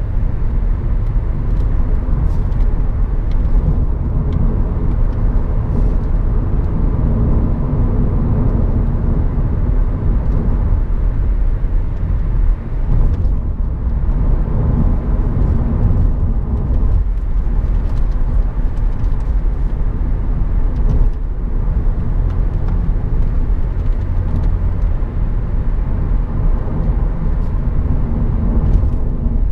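Heard from inside the cabin, a 2012 BMW 535i (F10) driving at speed: steady tyre and road rumble with the turbocharged 3.0-litre straight-six humming underneath, the sound easing off briefly a few times.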